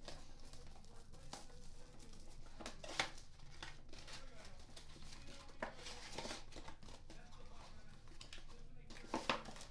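Shrink wrap and a cardboard box of Panini Playoff football cards being torn open and handled, with rustling, crinkling and sharp clicks; the loudest click comes about three seconds in, and a cluster of clicks follows near the end.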